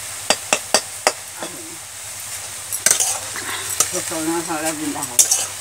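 Leafy greens frying in a metal kadai, sizzling while a metal spatula stirs them, with repeated sharp clicks of the spatula striking and scraping the pan.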